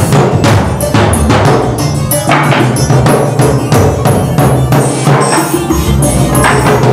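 Free-improvised drumming on a drum kit: dense, irregular strikes on drums and cymbals, several a second. A steady held tone comes in near the end.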